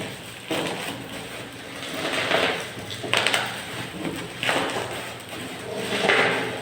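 Handling noise: a run of rustling, scraping bursts, one every second or two.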